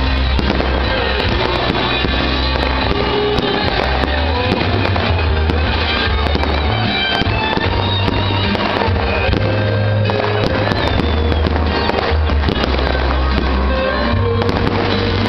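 Fireworks bursting and crackling, with many sharp pops in quick succession, over music with a heavy bass line.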